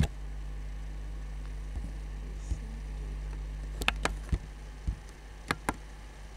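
Computer mouse clicks: one sharp click at the start, then a cluster of six or so between about four and six seconds, as a window menu is opened and a command is chosen. A steady low electrical hum runs underneath.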